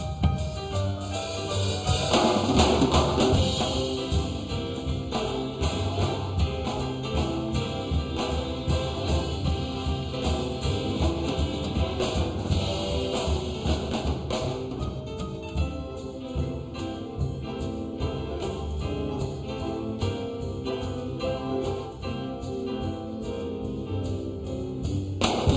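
Big band jazz played instrumentally, with a drum kit keeping a steady beat under sustained band chords.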